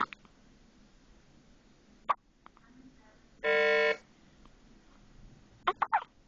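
Hospital patient monitor giving a single steady electronic beep, about half a second long, roughly three and a half seconds in, part of an alarm that repeats every few seconds. A few short sharp clicks come before it and in a quick cluster near the end.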